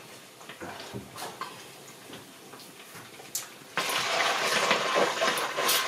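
Tinned tomato paste frying in hot groundnut oil in a stainless steel pot, which breaks into a loud, steady sizzle about four seconds in as it is stirred with a wooden spoon. A few light clicks of the utensils come before it.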